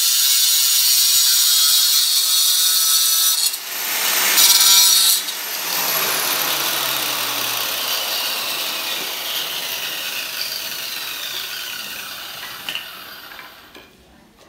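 Handheld electric marble cutter with a diamond disc cutting through an inlaid marble border strip: a loud, high grinding noise for about five seconds, with a short break partway through. The trigger is then released and the disc spins down, its whine falling in pitch and fading away over the rest.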